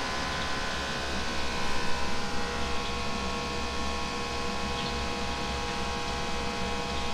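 Steady hum and hiss of kitchen machinery with several steady tones, slightly louder and uneven about two seconds in, and a few faint ticks.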